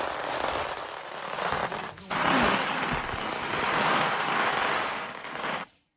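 A string of firecrackers going off in a dense, rapid crackle. It breaks off briefly about two seconds in, resumes, and cuts off suddenly just before the end.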